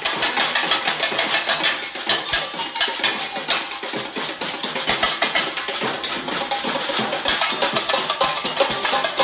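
Carnival-style percussion music with a dense, driving drum rhythm. About seven seconds in, brighter high percussion joins the beat.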